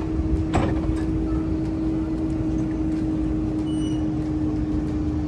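Melbourne low-floor tram standing at a stop, giving off a steady electrical hum over a low rumble, with a short knock about half a second in.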